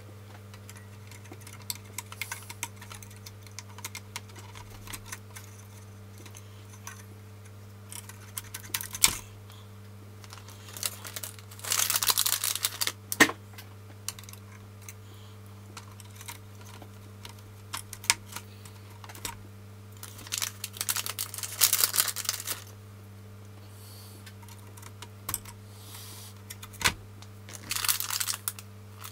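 Small clicks and taps of hands working among the lamp holders of an open radio chassis while small bulbs are fitted, with spells of plastic bag crinkling about 12 seconds in, around 21 seconds and near the end. A steady low hum runs underneath.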